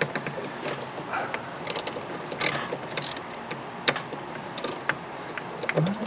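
Hand ratchet clicking in short, irregular bursts as it backs out the screws on a 2002 Chevy S10's wiper motor pulse-board housing.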